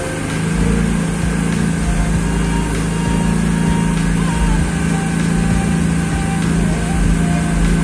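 Honda Civic Wonder's engine idling steadily with the air-conditioning running, while the AC system is charged with refrigerant (freon).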